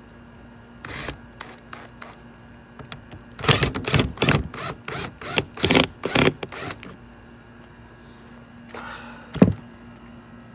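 Hand work on a wooden board: a quick run of about ten sharp strokes in a row, then a rustle ending in a single thump near the end.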